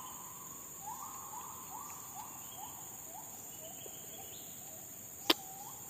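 Forest insects (crickets) keep up a steady high-pitched drone while a bird calls a run of short upslurred notes, about three a second, each a little lower than the last. A single sharp click comes about five seconds in.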